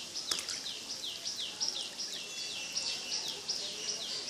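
A steady run of high, downward-sliding chirps, about three a second, from a bird or insect, over the faint splash of water being poured into a plastic tub. A single click comes just after the start.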